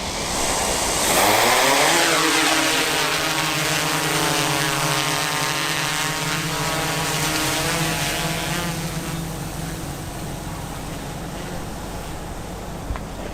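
An aircraft flying close past. It gets louder over the first couple of seconds, and its pitch drops sharply as it goes by. It then holds one steady pitched tone for several seconds and fades away toward the end.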